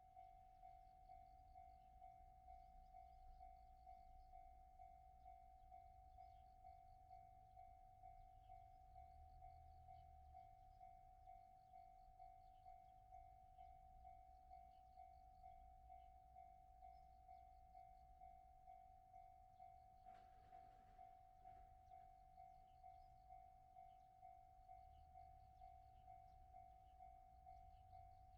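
Japanese railway level-crossing warning bell ringing in an even beat, about three strikes every two seconds, on one steady pitch. A brief noisy passing sound comes through about twenty seconds in.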